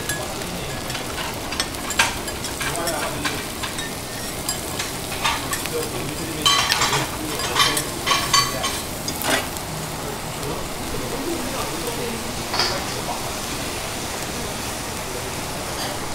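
Food sizzling steadily on a hot teppanyaki iron griddle, with metal spatulas clicking and scraping against the plate again and again, most thickly about halfway through.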